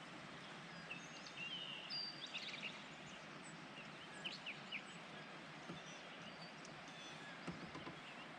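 Scattered short bird chirps and whistles over a steady outdoor rush of background noise.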